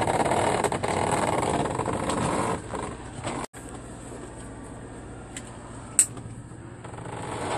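Semi truck's diesel engine running, heard from inside the sleeper cab: a loud, steady noise for the first two to three seconds, then a quieter steady hum. There is a sharp click about six seconds in.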